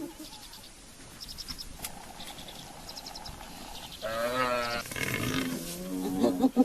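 Cape buffalo calf bleating in distress: a wavering, quavering call about four seconds in, followed by further calls up to the end. Small high chirps repeat a few times in the first three seconds.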